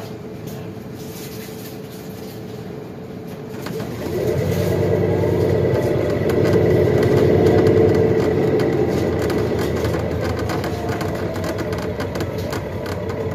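Inside a 2021 Nova Bus LFS Hybrid city bus under way: the diesel-electric drive grows louder about four seconds in, a whine gliding up in pitch as the bus pulls away and gains speed, then eases off gradually.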